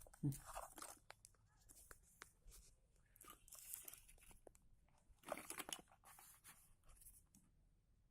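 Product packaging being handled and opened: short, intermittent bursts of crinkling and tearing plastic and cardboard, the loudest a little past five seconds in.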